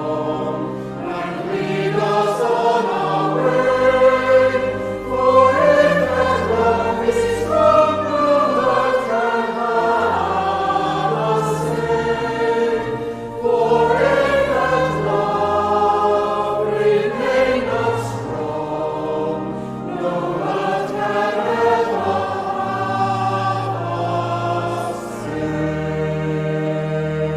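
A choir singing, many voices holding long notes that change together over steady low notes.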